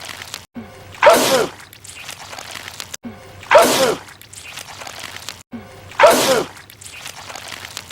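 A man sneezing loudly three times, about two and a half seconds apart. Each is the same explosive sneeze with a falling cry, a repeated film clip with short cuts between the repeats.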